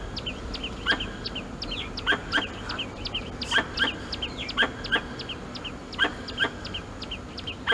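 Young white-headed leaf monkeys crying from hunger: many short, high-pitched calls overlapping and repeating several times a second, with a stronger call roughly once a second.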